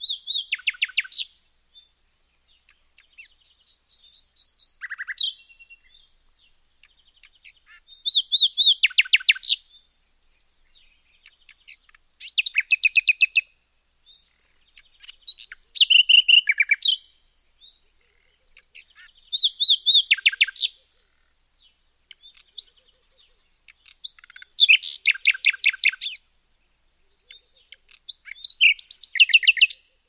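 A songbird singing the same kind of short phrase over and over: a quick run of high chirping notes lasting a second or two, repeated about every four seconds.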